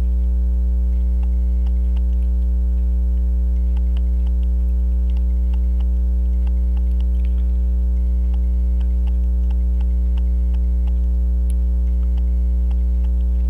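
Loud, steady electrical mains hum, with faint, irregular small clicks scattered through it from hand tools working on the pocket watch movement.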